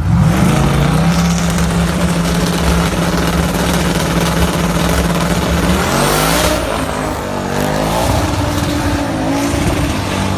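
Drag car launching at full throttle on a quarter-mile run. The engine note climbs sharply at the start, then holds steady at high revs for several seconds. Around six seconds in the pitch drops and climbs again.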